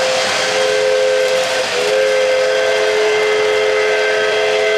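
O-gauge model steam locomotive's electronic sound-system whistle blowing two long blasts, a steady two-note chord with a short break between them, over the hiss and rumble of the model train rolling along the track.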